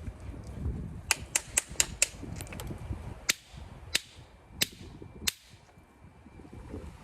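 Obsidian being knapped: sharp, bright clicks of stone on stone as flakes come off, five in quick succession, then four more evenly spaced, with low rustling of handling in between.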